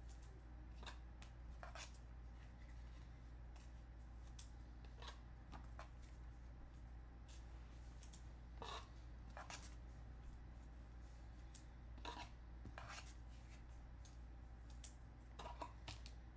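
Trading cards being handled, with scattered faint clicks and rustles of card stock over a low steady hum.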